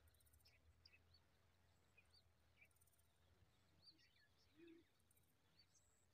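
Near silence, with scattered faint, short high chirps of small birds and a low steady hum.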